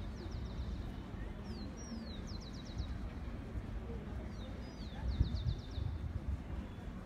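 A small songbird singing the same short song three times: a couple of falling slurred whistles followed by a quick high trill. A steady low rumble sits beneath it.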